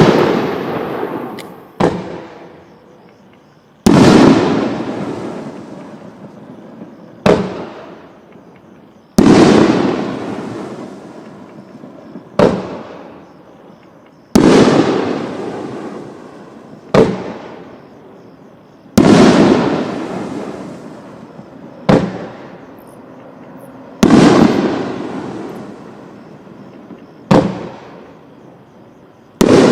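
Fireworks going off in a steady cycle. About every five seconds a sharp crack comes, then about two seconds later a louder bang with a long fading crackle. The cycle runs six times.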